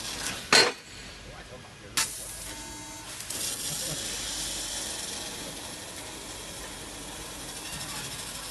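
Laser tube cutting machine cutting a steel tube: a steady hiss of the cutting head's gas jet and the cut, broken by two sharp bangs about half a second and two seconds in, the first the louder. The hiss grows brighter from about three seconds in.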